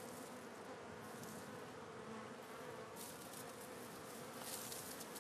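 Faint, steady buzzing of a swarm of small biting flies (moscos) around the microphone.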